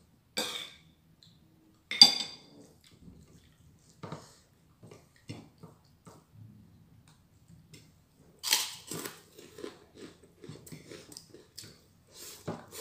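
A person chewing food close to the microphone, with crunchy bites and a few sharp clinks of a utensil against a plate; the loudest clink comes about two seconds in.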